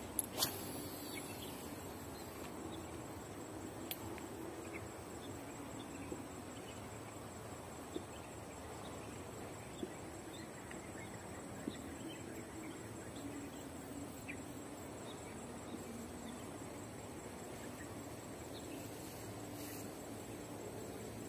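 Outdoor ambience of steady insect chirring, with a few short, sharp clicks every few seconds, the loudest right at the start.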